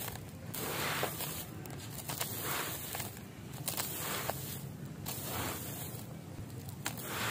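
Hands crumbling dry, dusty concrete chunks into a plastic basin: repeated gritty crunching as the pieces break, with grit and powder sifting down, about once a second, and a few sharp clicks of hard bits snapping.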